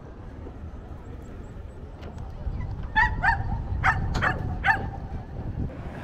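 An animal yelping: about five short, high calls in quick succession, starting about three seconds in, over a low rumble.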